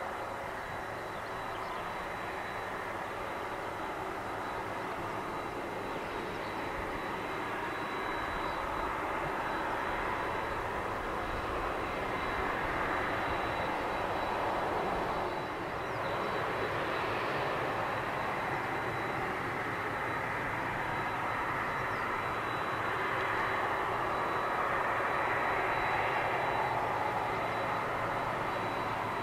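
Boeing 767-300's twin turbofan engines at taxi power as the airliner turns onto the runway and lines up. A steady jet rumble and hiss with a thin high whine, swelling a little at times.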